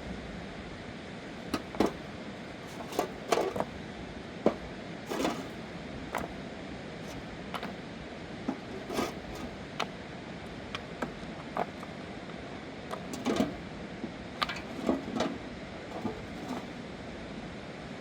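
Irregular short knocks and clicks, a dozen or more scattered unevenly, over a steady background hiss.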